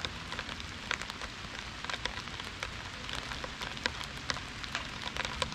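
Light rain: a steady hiss with scattered sharp ticks about once a second.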